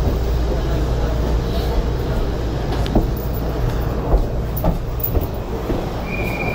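Steady low rumble inside a Shonan Monorail 5000 series suspended monorail car, with a few short knocks. A steady high beep starts near the end.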